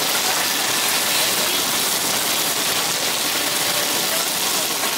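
Chicken sizzling on a hot teppanyaki flat-top griddle: a steady hiss.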